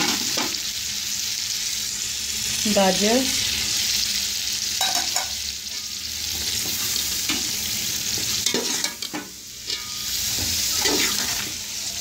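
Green peas and julienned carrots sizzling as they fry in hot oil and tomato-chilli masala in a steel pot, with a slotted steel spoon scraping the pot now and then as they are stirred.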